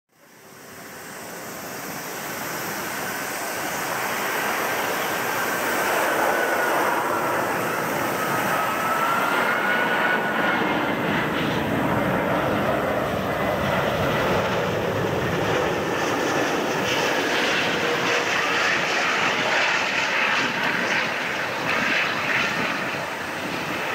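Airbus A380's four Rolls-Royce Trent 900 turbofans on final approach to landing: a steady jet roar that grows louder over the first few seconds and then holds. A high engine whine runs through it and dips slowly in pitch midway.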